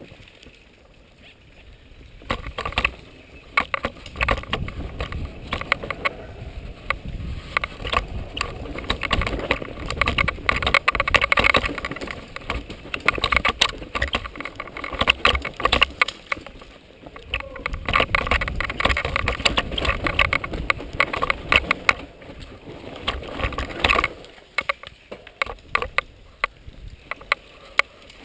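Downhill mountain bike running fast over a rough dirt trail: a constant clatter of the bike and tyres hitting roots and rocks, with many sharp knocks. It is quieter at the start and again for a few seconds near the end.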